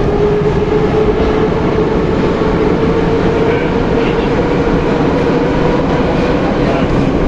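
Moscow metro 81-717/714 train running between stations: a steady loud rumble of wheels on rail, with the traction motors' whine slowly rising in pitch.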